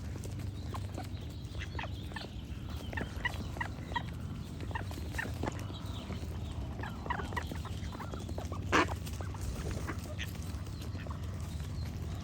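Ducks quacking with small birds chirping, many short calls scattered throughout and one louder call about nine seconds in, over a steady low background hum.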